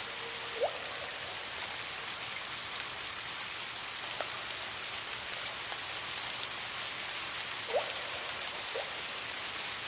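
Steady soft rain hiss, with single water drops plinking into water, each a short rising blip: one about a second in and two near the end.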